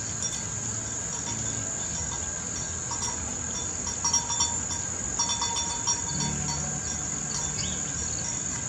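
Steady high-pitched insect chorus from the garden, with a few short high notes about three to six seconds in.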